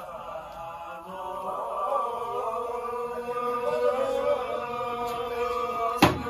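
A group of women singing a traditional Mugum kogyi song together in long, drawn-out notes, growing louder about a second in. A single sharp knock sounds near the end.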